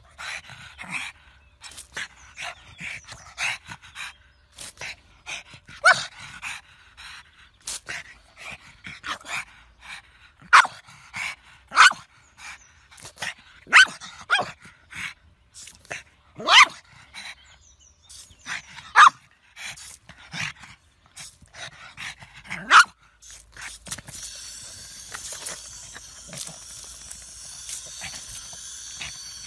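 Pug barking in short, sharp barks, several louder ones a couple of seconds apart, with quick panting in between. Near the end a steady hiss of spraying water starts.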